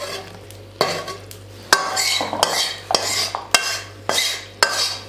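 A spatula stirring a thick mixture in a steel kadhai: sharp clinks of the spatula against the pan every half second to a second, with scraping between them.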